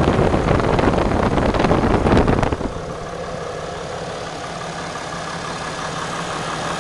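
Cummins 6.7 L inline-six turbo diesel engine running at idle. It is louder and rougher for the first two and a half seconds, then drops to a quieter, steady idle.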